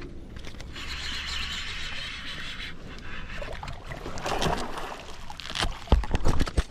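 Handling noise on a fishing kayak: a couple of seconds of hiss at the start, scattered clicks, then a run of loud knocks near the end.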